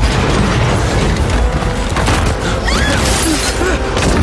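Film sound design of a concrete dam breaking apart in an earthquake: a continuous deep rumble with crashing, cracking debris, mixed with the film's music score.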